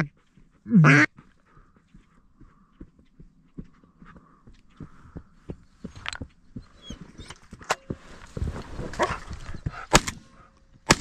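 A single loud, falling duck quack about a second in, then faint scattered ticks and a rustle. Near the end come two sharp shotgun shots about a second apart.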